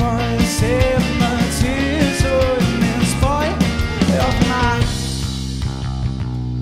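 Live rock band playing: a male voice singing over electric guitar, bass guitar and drums. About five seconds in the drums and cymbals stop, leaving held guitar and bass notes ringing.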